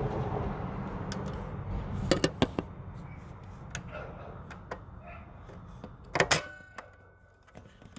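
Toy foam-dart sniper blaster (Nerf Air Warriors Ultra Tech) handled with a few sharp clicks about two seconds in, then firing with a single louder snap about six seconds in. It is a weak shot, which the owner puts down to sand in the barrel.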